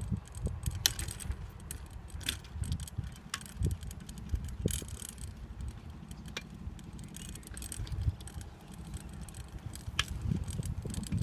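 Bicycle rattling and clinking as it rides over a rough dirt lane, with scattered sharp clicks over a steady low rumble.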